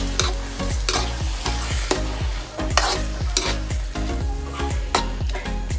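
A spatula stirring and scraping mushrooms, chicken and Alfredo sauce around a hot metal wok, with sharp scrapes against the pan about twice a second over a steady sizzle.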